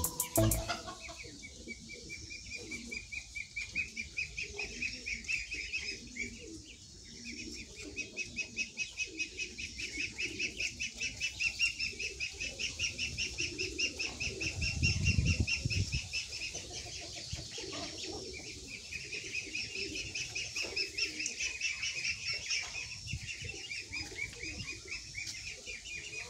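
Chickens clucking softly under a fast, high-pitched trill that repeats in three long stretches. A low rumble comes about 15 seconds in.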